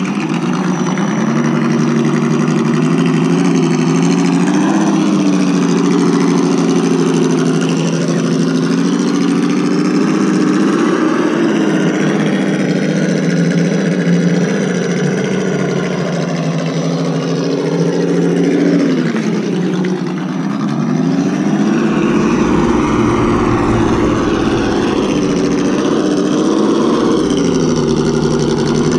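An ESS Dual sound module on an Axial Wraith RC crawler plays a simulated engine note through its speaker. The note rises and falls with the throttle, drops low about twenty seconds in, then climbs again.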